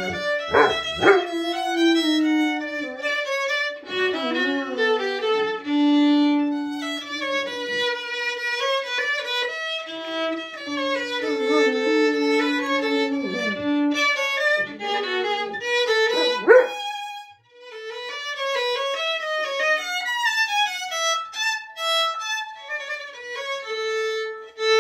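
A golden retriever howling along to a violin melody, its pitch sliding up and down against the violin's notes. For the last several seconds only the violin is heard.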